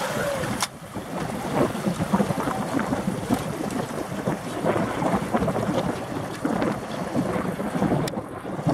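Wind buffeting the microphone over the running noise of a small river boat on the water, with a sharp click under a second in.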